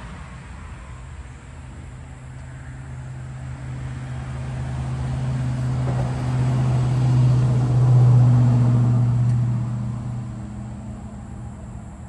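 A motor vehicle's engine hum swelling as it approaches, loudest about eight seconds in, then fading away as it passes.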